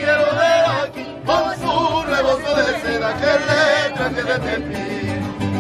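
Mariachi singers singing with a strong, wavering vibrato, with a brief break about a second in.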